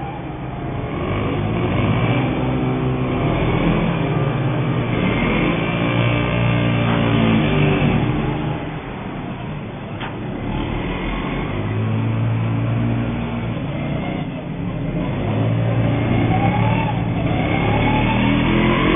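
Small two-stroke petrol engines of 1:5 scale radio-controlled rally cars revving up and down as several cars race past at once, the pitch rising and falling with each acceleration and corner.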